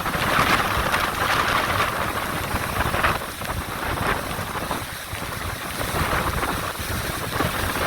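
Hurricane wind blowing hard and rumbling across the microphone, rising and easing in gusts and dropping a little in the middle.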